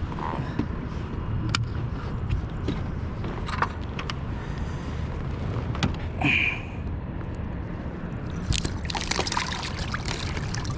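Water trickling and splashing along a pedal kayak's hull while trolling, over a steady low rumble, with scattered light clicks and knocks.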